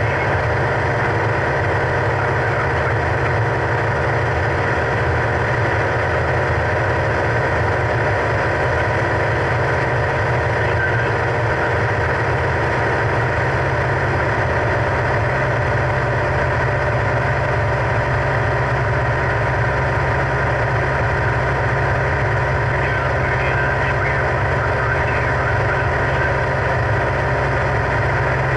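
Single-engine propeller plane's engine and propeller running steadily in flight, a constant drone heard from inside the cockpit.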